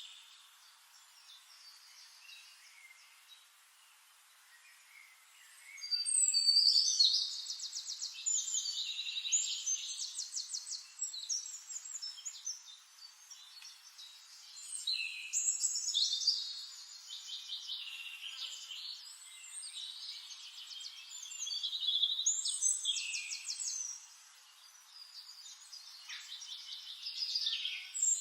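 Songbirds singing in high, rapidly trilled phrases, starting about six seconds in after a quiet stretch and coming back every few seconds with short pauses between phrases.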